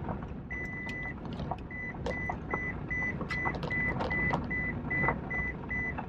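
Road noise rumbling inside a moving car's cabin, with the car's high electronic warning chime: one held tone about half a second in, then rapid beeping about three times a second from about two seconds in.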